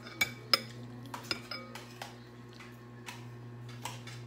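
Metal ladle clinking against a large glass serving bowl as soup and noodles are scooped out. Three or four sharp ringing clinks come in the first second and a half, followed by softer scraping and stirring.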